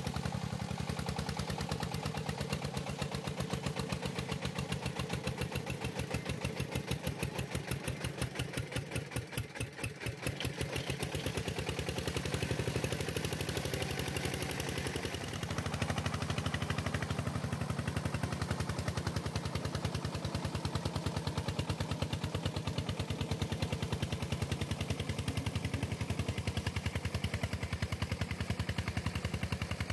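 Single-cylinder diesel engine of a two-wheel tractor hauling a heavily loaded trailer uphill, chugging with a fast, even beat under load. It gets louder about halfway through.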